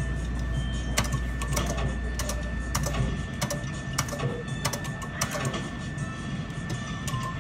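Queen of Virginia skill-game machine's sound effects as its reels spin: a quick irregular run of electronic clicks and ticks over game music, with a thin steady high tone underneath. A low hum drops out about three seconds in.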